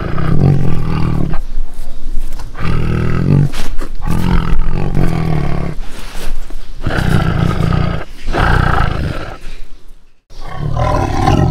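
Lion roaring: a run of about seven loud, deep calls, each about a second long with short gaps, a brief break about ten seconds in, then another call starting.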